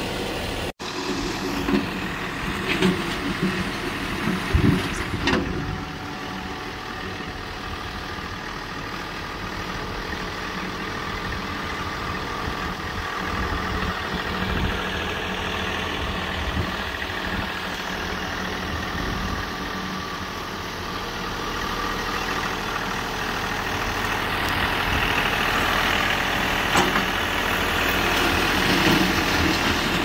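John Deere 3046R compact tractor's three-cylinder diesel engine running steadily as the tractor grades a dirt yard. There are a few clanks in the first few seconds, and the sound grows louder near the end as the tractor comes closer.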